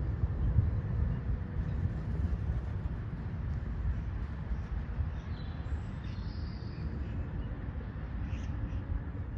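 Wind rumbling on the microphone outdoors, with a few faint bird calls about five seconds in and again near the end.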